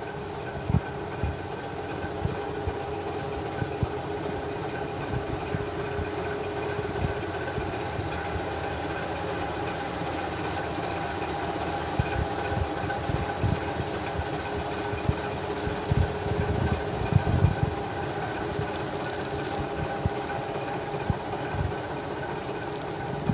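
1990 Ford L9000 dump truck's diesel engine idling, a steady drone, with irregular low thumps underneath.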